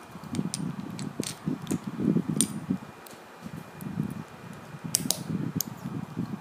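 LEGO bricks being handled: a scattering of sharp plastic clicks and clatters as pieces are picked up, turned and set down, over low rustling from hands moving against the table.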